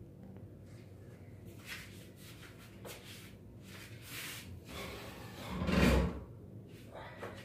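Objects being handled on top of a tall wardrobe: rustling and light knocks, then a louder thump about six seconds in as something is lifted down.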